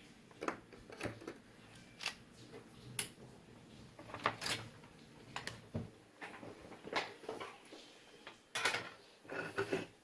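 Scattered light clicks and knocks, about a dozen at uneven intervals, as the car engine computer and its circuit board are handled on the workbench.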